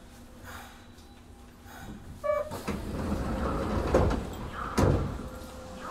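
Passenger doors of a Kobe Municipal Subway 1000 series train sliding along their tracks while the train stands at a station. A short chime comes about two seconds in, the rushing door noise follows, and two sharp knocks near the end are the door leaves reaching their stops.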